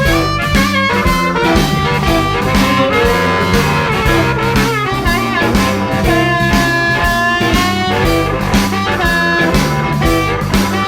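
Blues band music: an instrumental passage between sung verses, with a steady beat and a lead line of bending, wavering notes in the middle.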